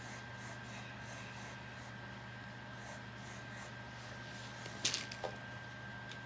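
Pencil sketching on sketchbook paper: faint, repeated scratchy strokes over a steady low hum and a thin high whine, with a sharp tap about five seconds in.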